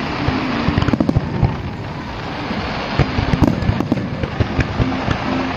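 Fireworks display going off: a rapid string of bangs and crackles over a steady rumbling background, thickest about a second in and again around three to four seconds in.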